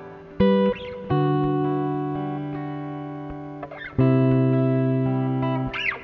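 Acoustic guitar playing slow ringing chords, each left to fade, with fresh chords struck near the start, about a second in and about four seconds in. Short squeaks of fingers sliding on the strings come between the chord changes.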